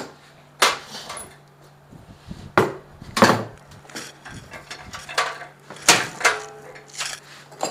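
Metal parts (a steel heating-element coil, a spanner and the stainless-steel autoclave body) being set down and handled on a wooden desk: a few sharp knocks and clinks, one followed by a short metallic ring, over a faint low hum.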